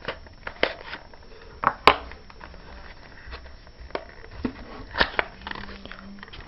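Cardboard box and plastic packaging being opened and handled by hand: scattered clicks, crinkles and taps, with sharper clicks about two seconds in and again about five seconds in.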